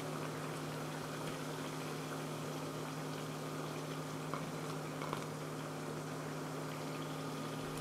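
Pumpkin-starch fritters frying in hot sunflower oil in a pan, a steady sizzle. A few light clicks come from a fork against the pan and plate as fried fritters are lifted out. A steady low hum runs underneath.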